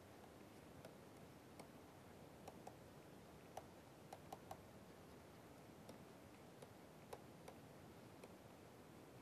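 Near silence with faint, unevenly spaced clicks of a stylus tapping on a tablet screen as words are handwritten.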